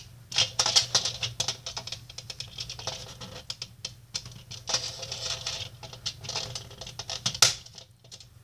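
Fingers picking and scraping at a plastic frame of GES cube tension nuts, trying to pop a nut out: quick irregular clicks, scratches and rustle, with one sharper click about seven seconds in. A faint low hum runs underneath.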